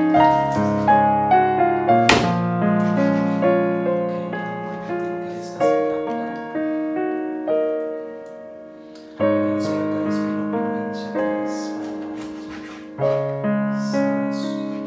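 Piano music: notes and chords struck and left to ring out, with fresh chords entering about every three to four seconds.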